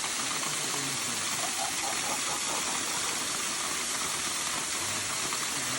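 Waterfall's rushing water, a steady, even hiss, with faint voices in the background.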